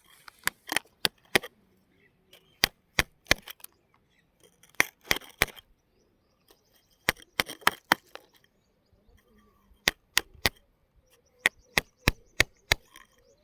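Sharp knocks of hard objects striking each other, in six quick clusters of three to five strikes about two seconds apart.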